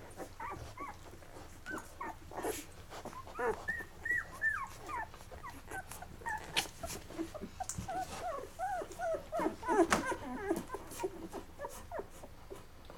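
Eleven-day-old chocolate Labrador puppies squeaking and whimpering in many short, high little cries while nursing, with a few soft clicks among them.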